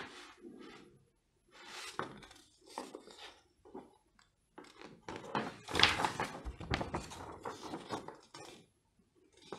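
Paper pages of a model kit's printed instruction booklet rustling and crinkling as they are handled and turned, in irregular bursts, loudest about six seconds in.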